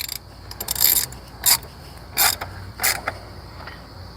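Ratchet wrench tightening a 10 mm bolt on a fuel pressure regulator mount: about five short ratcheting rasps, one per back-swing, in the first three seconds, then it goes quiet.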